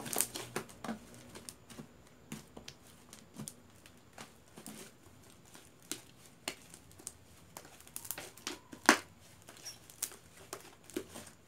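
Fluffy slime being kneaded, folded and stretched by hand on a tabletop: irregular clicks and small pops as the slime folds over and lets out trapped air, with one sharper snap about nine seconds in.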